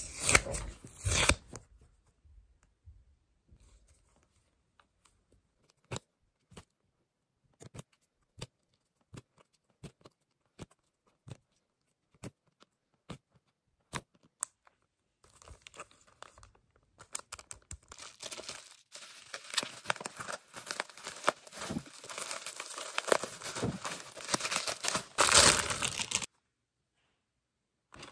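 Clear plastic wrapping and photocard sleeves crinkling and tearing as they are opened and handled. A long stretch of scattered light clicks and taps runs between the rustling, and a dense bout of crinkling near the end cuts off suddenly.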